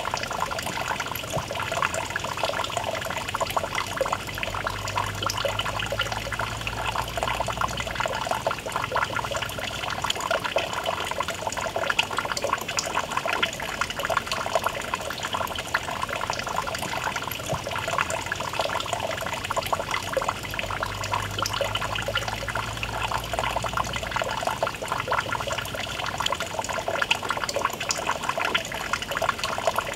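Thin stream of water pouring from a small fountain spout into a shallow pool: a steady splashing trickle.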